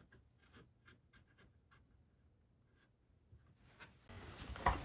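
Faint, quick scratching strokes, about eight of them in the first two seconds, then near quiet. Near the end a louder background hiss comes in, with a thump.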